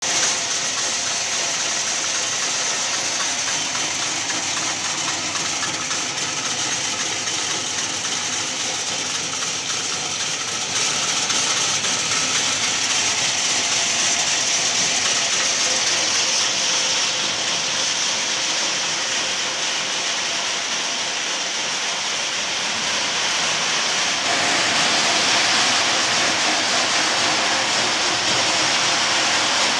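Betel nuts tumbling in a polishing machine: a dense, steady rushing rattle of hard nuts churning against each other and the machine. It gets a little louder about eleven seconds in and again past twenty seconds.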